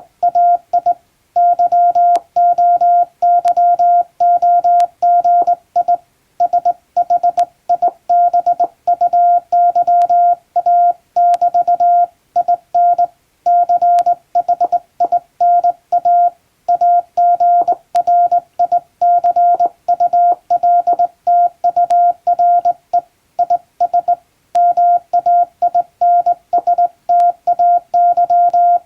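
Morse code sent by hand on a straight key: a single steady beep keyed on and off in dots and dashes, with short pauses between groups.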